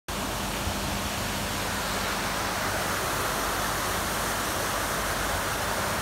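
Steady rushing noise of falling water from a waterfall.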